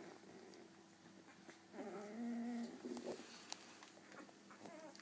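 Week-old Golden Retriever puppies whimpering. One puppy gives a rising-and-falling whining cry about two seconds in that lasts about a second, and there are fainter squeaks near the end.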